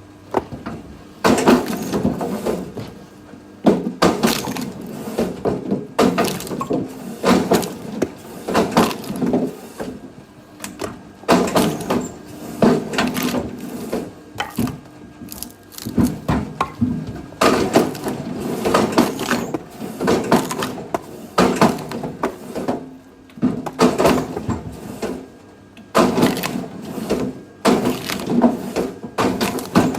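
Firewood being split: repeated blows land every one to three seconds, each followed by the wood cracking and splintering apart.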